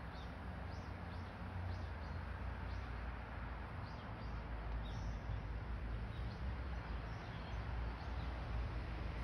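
Outdoor park ambience: a small bird calls over and over in short, high chirps, about one or two a second, over a steady low rumble.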